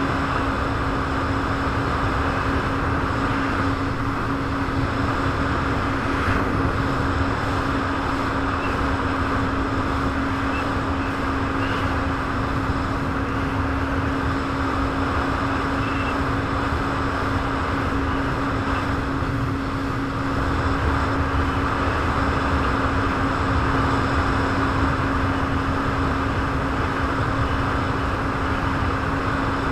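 Jet ski engine running at a steady speed, holding one unchanging tone under a constant rushing noise.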